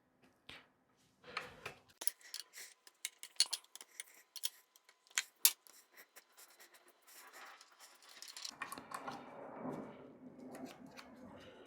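Hands handling small hard parts: a quick irregular run of sharp clicks and light rattles, giving way about seven seconds in to a softer continuous rustling and scraping.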